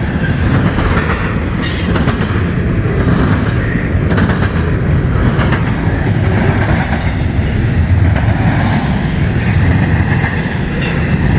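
Canadian National freight train cars rolling past, a loud steady rumble with the wheels clattering over the rail joints. A sharp clank stands out about two seconds in and again near the end.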